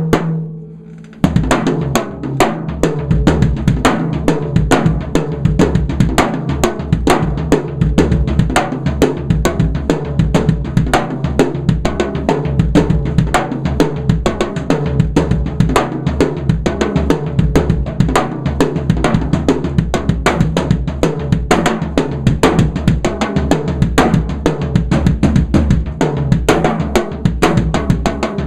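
Drum kit groove built around a 13x7 ddrum Journeyman snare drum tuned very low with the snare wires switched off, so it rings like a deep tom, with bass drum and cymbals. The playing pauses briefly about a second in, then runs as dense, busy strokes.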